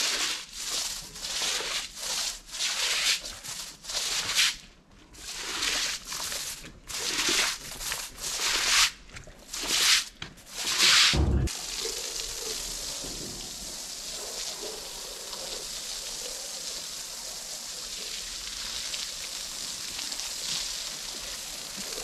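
A wet blanket being scrubbed and rubbed by hand in rhythmic strokes, about one a second, ending with a thump. Then water runs steadily, as from a tap.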